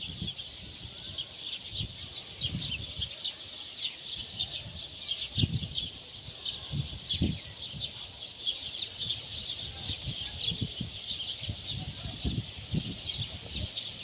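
A flock of sparrows chirping together: a dense, unbroken chatter of many short, high chirps overlapping one another. Scattered low thumps and murmurs sit underneath.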